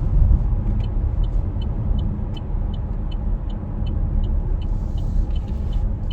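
Low steady road and engine rumble inside a moving car's cabin. Over it runs an even ticking of about two to three clicks a second, like a turn-signal indicator.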